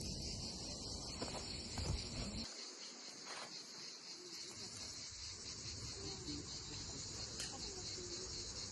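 Steady high-pitched insect chirring. A low rumble underneath stops about two and a half seconds in.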